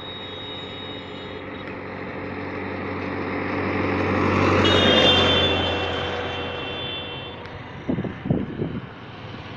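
A utility jeep approaching and passing close by on the road, its engine and tyre noise swelling to a peak about five seconds in and then fading. A few short knocks and bumps near the end.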